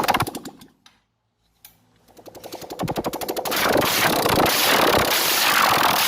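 Honda CB190R single-cylinder engine running in rapid firing pulses, dying away to silence about a second in, then starting again and picking up to a steady fast run.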